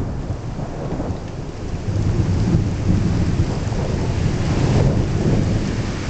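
Thunderstorm: rolling thunder rumbling low under steady rain. The rumble swells about two seconds in and holds for a few seconds before easing.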